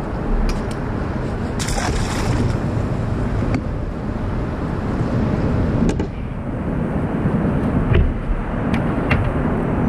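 Steady low outdoor rumble, with a few sharp clicks and knocks from fishing tackle being handled in a kayak and a brief hiss about two seconds in.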